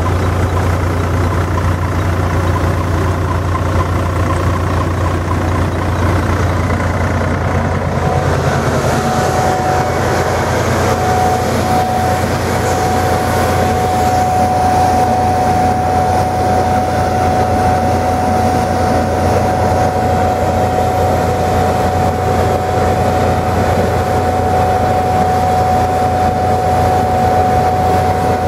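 Tractor engine running steadily under load, driving a nursery roller brush and blower that loosen soil and blow it off a rootstock stool bed. A steady high whine sets in about nine seconds in and holds.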